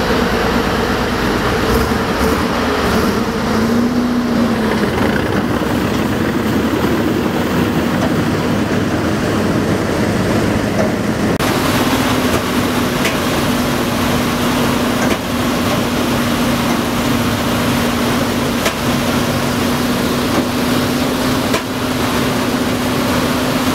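A WWII-era Marine LVT amphibious tractor's engine running steadily under way, a loud constant drone. About halfway through, the sound turns abruptly brighter and the drone settles onto one steady pitch.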